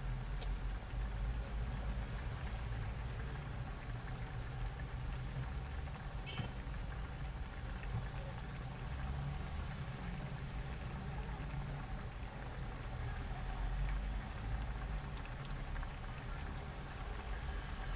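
Pork cubes, long green chili peppers and bay leaves boiling in water in a pan, a steady bubbling with a low rumble underneath, as the meat is simmered until tender.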